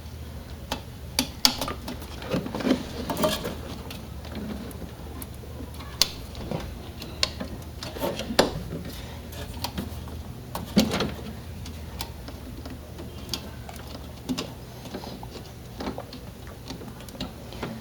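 Irregular clicks and knocks of metal and plastic parts being handled as a Thermalright Frost Spirit 140 CPU tower cooler is fitted back into a PC, over a steady low hum.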